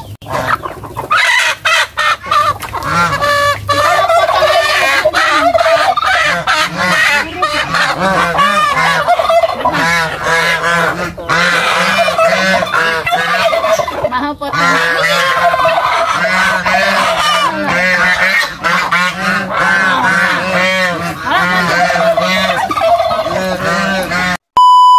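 A flock of free-range village chickens and geese calling loudly, squawks and honks overlapping, while a hen is grabbed and held by hand. Near the end a loud, steady one-tone beep cuts in briefly.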